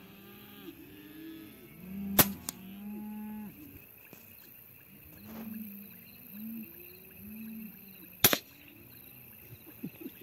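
Two sharp shots from an R2800s bullpup air rifle, about six seconds apart. Low arching animal calls repeat between them.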